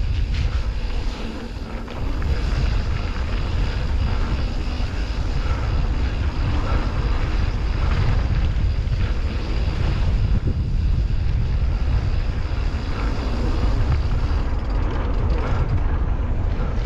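Wind buffeting the microphone of a camera moving along a dirt trail: a steady, loud low rumble that dips briefly about a second in.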